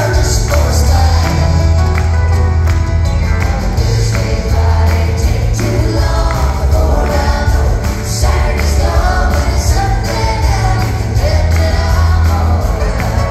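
Country ballad performed live by a band: a woman singing lead while strumming an acoustic guitar, backed by drums.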